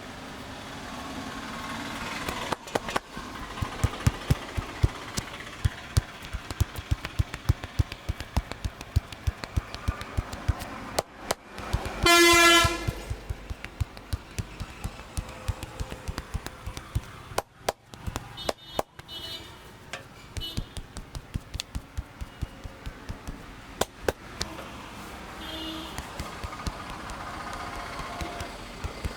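Hands slapping and tapping on a head and shoulders in a head massage, several quick strikes a second, over steady street noise. About twelve seconds in, a vehicle horn honks loudly for about half a second.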